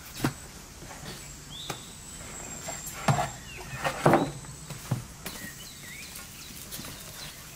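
Soft, irregular thumps of sticky bread dough being pulled from a metal bowl and set down on a floured metal tray, the loudest about three and four seconds in, with small birds chirping in the background.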